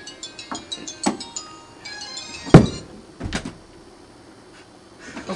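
A tinkling, chime-like melody, then a loud sharp thump about halfway through and a second, softer knock just after it.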